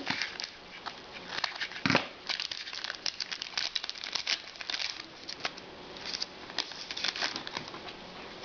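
Trading-card pack wrapper crinkling and cards being handled, an irregular crackling rustle with a couple of sharper clicks near the start and about two seconds in.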